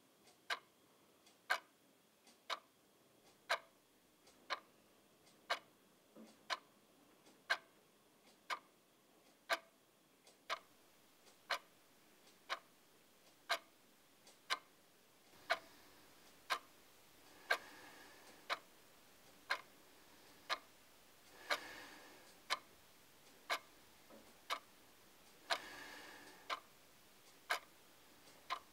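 Clock ticking steadily, about one sharp tick a second. About halfway a faint steady background comes in, and three soft swells of noise rise and fall about four seconds apart.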